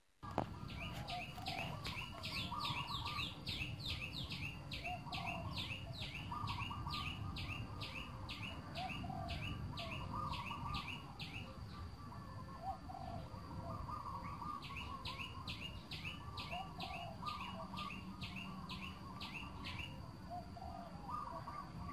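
Birds calling in an orchard: long runs of quick, falling high notes, about three a second, that pause briefly about twelve seconds in, with lower warbling calls from another bird, over a steady low rumble.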